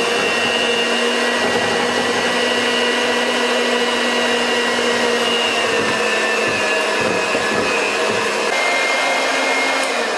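Electric hand mixer running steadily with its beaters whipping chocolate ganache in a bowl, a constant motor whine whose pitch dips slightly about six seconds in.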